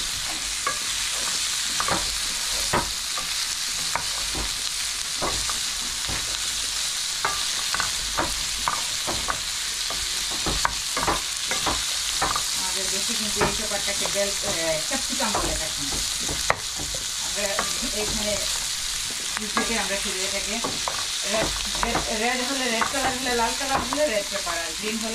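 Diced boneless chicken and red onion frying in butter in a nonstick wok, with a steady sizzle, while a wooden spatula stirs and clicks against the pan many times.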